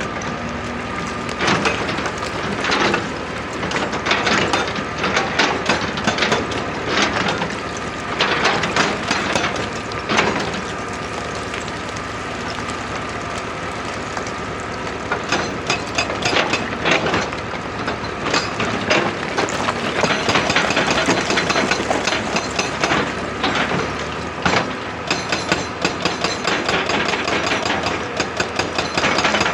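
Excavator working rock: the engine runs under load while stone cracks and knocks in irregular bursts. Near the end a fast, steady hammering starts.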